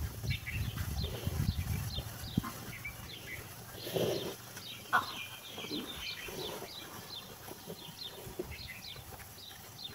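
Cattle eating chopped straw feed from a trough, with close-up rustling and chewing that is loudest in the first two seconds. Many short high chirps of small birds run throughout.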